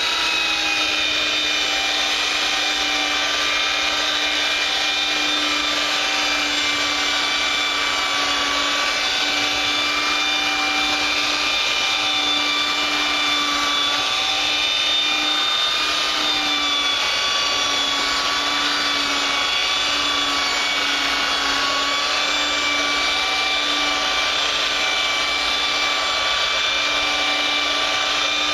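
Electric sander running steadily on a wooden cutting board: a constant motor hum and whine over a hiss, the pitch wavering slightly.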